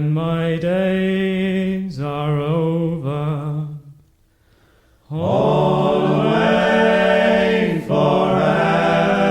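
A group of men singing a traditional sea shanty a cappella, over a steady low held note. One phrase ends about four seconds in, and after a short pause a fuller chorus comes in with long held notes.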